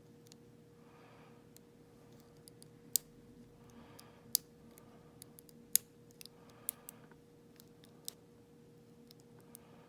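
Lock pick working the pins inside a Schlage Beast pin-tumbler lock: irregular sharp metallic clicks, the loudest about three, four and a half, and six seconds in.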